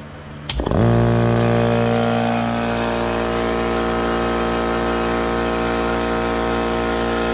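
Goodyear electric air compressor switched on: about half a second in its motor starts with a click, spins up almost at once and then runs loud and steady, pumping. Right beside it this reads 78 decibels.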